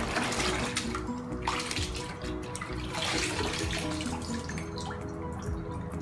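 Water sloshing and splashing in a plastic bucket as a cauliflower is stirred around in it, with soft background music playing.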